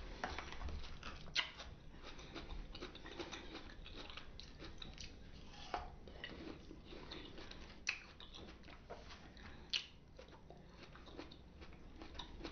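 A person chewing fresh fruit: soft, wet mouth sounds throughout, with four sharper clicks spread across the stretch.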